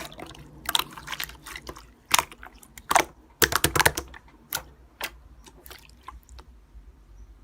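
Slime being squeezed and poked by hand, giving quick wet clicks and pops in dense clusters that thin out after about five seconds.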